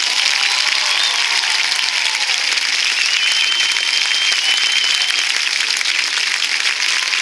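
Stadium crowd applauding and cheering at the end of a marching band show, with whistles over the clapping, one of them held for about two seconds near the middle.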